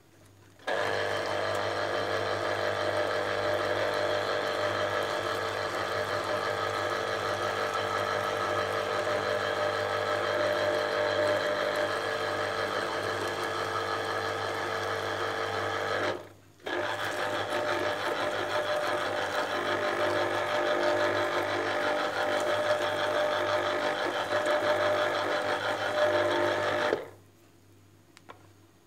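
Electric kitchen appliance motor running steadily for about fifteen seconds, stopping for a moment, then running again for about ten seconds before cutting off.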